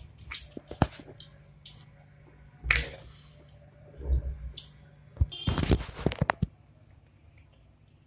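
Kitchen handling sounds as flatbread wrappers are moved between a wooden rolling board, an iron tawa and a steel plate: a few separate knocks and clicks, then a dense run of clatter about five to six and a half seconds in, over a faint low hum.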